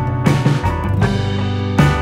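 Background music: sustained instrumental notes with drum hits.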